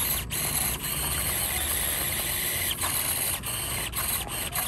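Tiny stock brushed motor and drivetrain of an SCX24 Chevy crawler whining steadily while it inches over gravel towing a loaded trailer. The sound drops out briefly several times as the throttle eases off.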